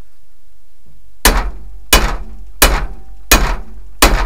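Framing hammer striking a steel driveshaft yoke five times, about one blow every 0.7 seconds, each with a short metallic ring. It is driving the old U-joint's bearing cups out of the yoke.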